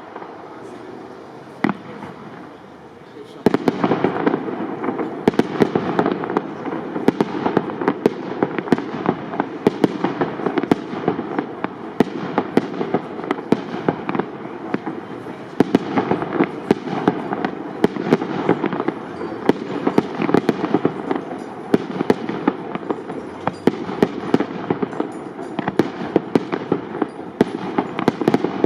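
Aerial fireworks display of shells up to 75 mm: a rapid, continuous barrage of bangs and crackling. It is quieter for the first three seconds or so, then turns dense and loud about three and a half seconds in.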